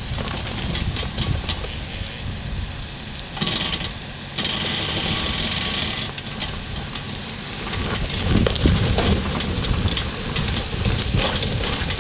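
Land Rover Discovery 3 idling as it creeps down a steep dirt slope, with the crackle of tyres on loose earth and stones. A stretch of louder hiss runs from about three and a half to six seconds in.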